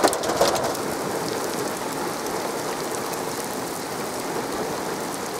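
Rain falling steadily on a paved road, an even hiss, with a few sharp close drop ticks in the first half-second.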